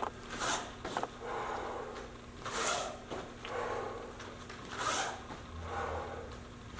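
A person doing sliding grapevines, making a short swishing rush about every two seconds as they move from side to side.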